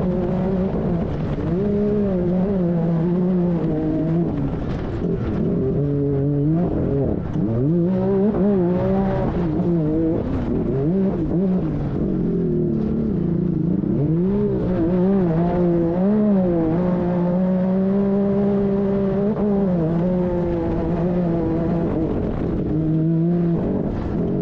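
Can-Am Maverick R's turbocharged three-cylinder engine driven hard, heard from inside the cockpit: revs rising and dipping again and again with throttle, with knocks and rattles from the chassis over rough ground.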